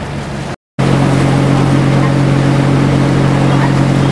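Tour boat's engine running steadily with a strong low hum over water and wind noise. The sound cuts out completely for a moment just over half a second in, then comes back with the engine hum louder.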